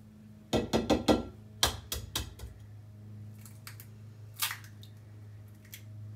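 An egg knocked several times against the rim of a mixing bowl to crack it: a quick run of sharp taps in the first two seconds, then a few fainter clicks as the shell is broken open.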